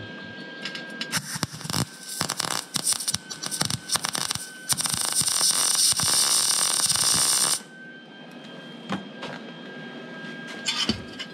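MIG welder arc on thin sheet metal. For a few seconds it crackles in short, broken bursts, then it runs as a steady crackle for about three seconds and cuts off suddenly about two-thirds of the way through.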